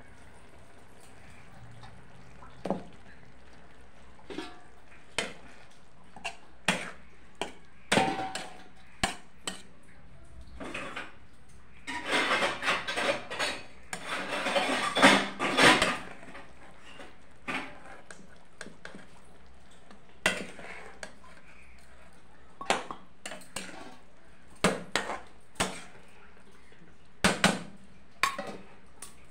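Metal spoon clinking and scraping against a steel kadhai while stirring an egg in thick curry gravy: scattered single taps, with a busier run of clattering scrapes around the middle.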